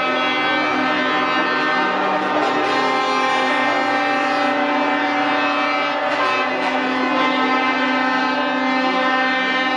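Several truck air horns held at once, their overlapping steady tones sounding together as a long chord, with some pitches dropping out or changing along the way.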